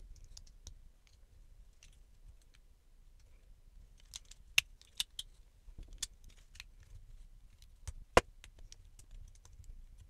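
LEGO plastic bricks and plates being handled and pressed together: scattered sharp clicks and snaps as pieces seat onto the studs. There is a quick run of clicks about four to five seconds in, and the loudest snap comes about eight seconds in.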